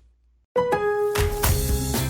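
About half a second of silence, then the background music of a radio commercial starts: steady held notes over a bass line.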